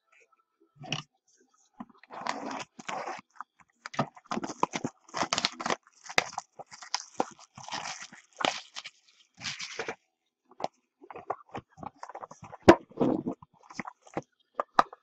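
Plastic shrink-wrap being torn and crinkled off a sealed trading card box, in irregular crackling bursts, with a sharp click about three-quarters of the way through.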